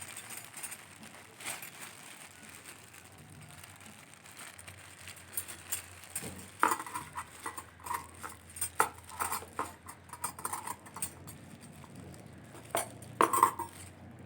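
Unboxing handling noise: scattered taps and rustles, then light metallic clinks with a short ring as the hand mixer's chromed steel beaters are lifted out and knocked together, busiest about halfway through and again near the end.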